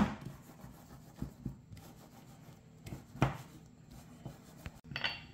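Metal cake pan full of batter knocked on a stone countertop once, then faint rubbing and scraping as it is shifted on the counter, with a few light clicks and one thump about three seconds in.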